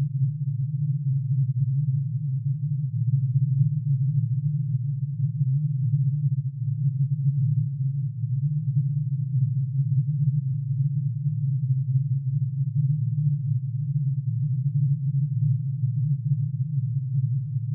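A steady, low drone made of many sine-wave tones added together: plutonium's atomic emission spectrum, each spectral line turned into a sine wave and pitch-shifted into the audible range. It holds unchanged, its tones packed into a narrow low band.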